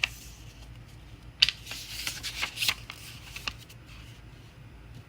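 Paper rustling and crackling as the pages of a picture book are handled and turned, with a sharp click at the start and a flurry of rustles over about two seconds in the middle.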